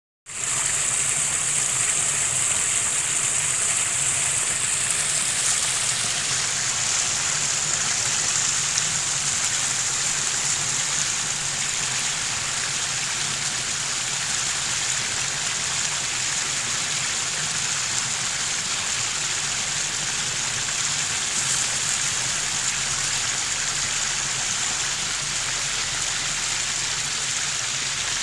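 A small stream murmuring steadily, an even, unbroken babble of running water.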